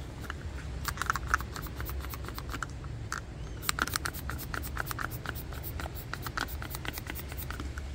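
A plastic trigger spray bottle of soapy water being squeezed over and over. Its trigger clicks in irregular runs of a few per second, because the sprayer is not spraying properly.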